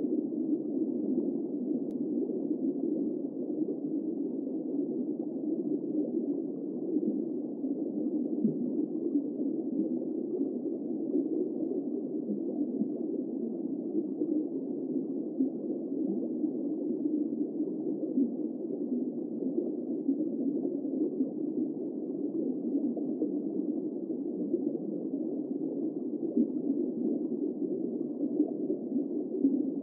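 Steady underwater ambience: a continuous, muffled rush of water noise, dull with no high sounds and no distinct events.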